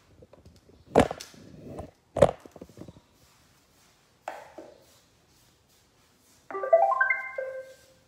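iRobot Roomba robot vacuum playing its short electronic start-up tune, a few quick notes ending on a lower held one, as its Clean button starts a cleaning run. Before it, two thumps near the start and a click of the button about four seconds in.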